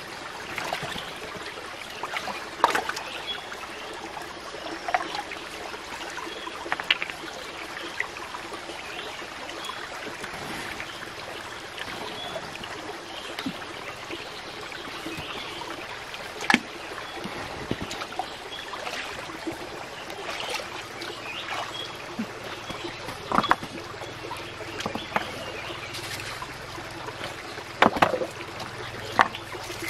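Shallow stream water trickling steadily, with hands splashing and stones knocking in the water several times.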